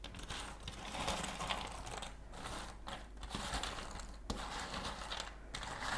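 Hands rummaging through a tray of cardboard jigsaw puzzle pieces: small pieces clattering and shifting against each other in uneven waves, with a few sharper clicks.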